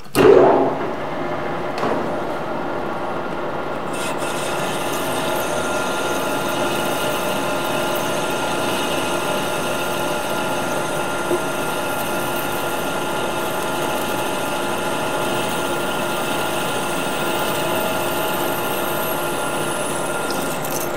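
Metal lathe starting up, then running steadily with several steady machine tones. From about four seconds in, a hand-ground high-speed steel trepanning tool cuts a ring groove into the face of a spinning metal bar, adding a steady hiss.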